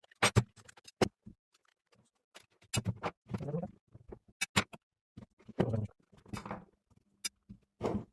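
Angle grinder being taken apart by hand: irregular clicks and knocks of parts and tools, with a few short scraping, rubbing stretches.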